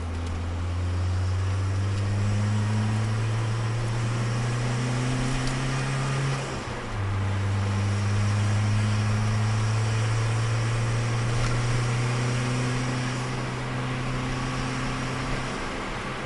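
Turbocharged Nissan Micra engine heard from inside the cabin under hard acceleration. Its pitch climbs steadily, dips briefly about six and a half seconds in as it changes up a gear, and climbs again before easing off near the end.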